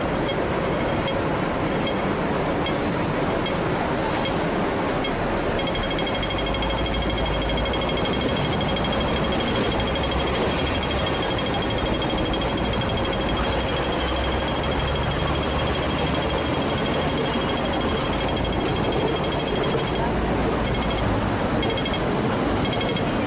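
Audible pedestrian crossing signal ticking: spaced, high-pitched ticks at first, then about a quarter of the way in a rapid ticking that runs on steadily and breaks up near the end. Street traffic and trams rumble underneath.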